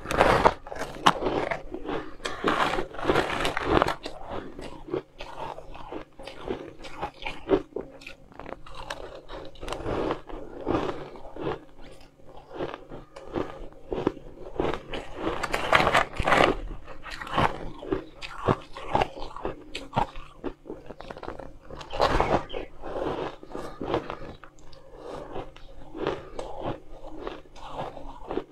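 A person biting into and chewing mouthfuls of fluffy pink shaved ice: a dense run of crisp crunches, with louder bursts in the first few seconds and twice more past the middle.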